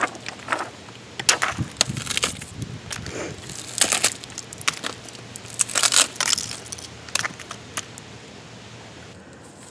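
Cracked plastic casing and shattered screen of a smashed white plastic MacBook being bent and pried apart by hand: irregular crackling snaps and crunches in several spells, dying down near the end.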